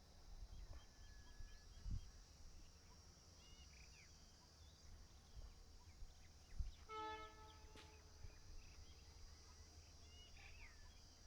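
Faint rural ambience: a steady high insect drone with a few bird chirps. About seven seconds in comes one short, steady horn note from far off, likely the approaching train's horn.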